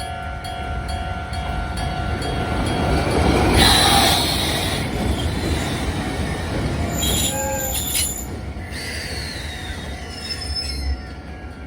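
Nagoya Rinkai Railway train running over a level crossing with its wheels screeching. The loudest screech comes about four seconds in, and over the last few seconds a squeal falls steadily in pitch.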